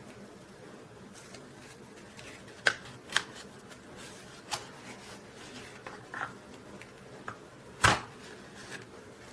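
Handling noise from an Ulanzi MT88 mini camera tripod: a scattered series of short clicks and knocks as its parts are worked, with one louder knock about eight seconds in.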